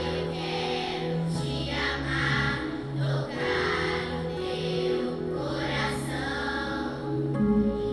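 Children's choir singing together in steady, continuous phrases.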